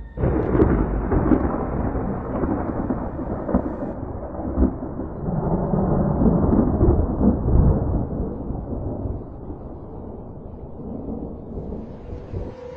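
Thunder: a sudden loud crack that rolls on as a long rumble with several swells, slowly fading away over about ten seconds.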